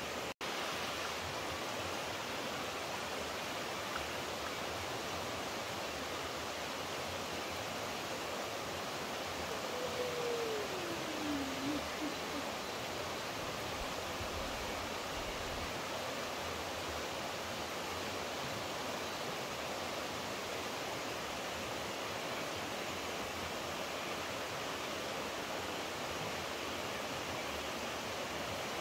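Steady rushing of flowing water. About ten seconds in, a faint single tone slides down in pitch over a couple of seconds.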